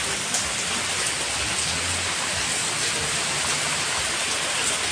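Heavy rain pouring steadily onto paved ground and parked cars: a dense, even hiss of falling water.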